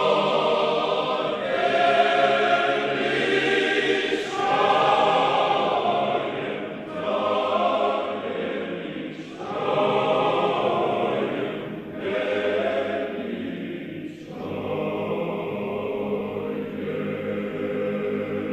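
Church choir singing sacred chant in held chords, phrase after phrase, with short breaks every two to three seconds.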